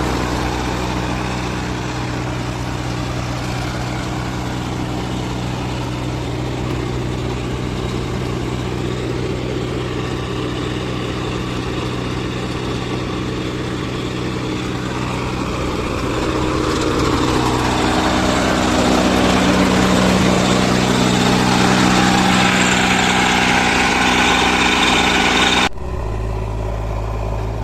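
Heavy diesel engine of earth-moving machinery running steadily, then revving up about two-thirds of the way through and holding the higher speed. Near the end the sound cuts off suddenly into a different, lower engine sound.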